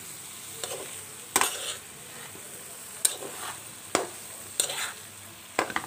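Metal spatula scraping and stirring okra and small shrimp in a frying pan: about six scrapes at uneven intervals over a low, steady sizzle of the oil and spice paste.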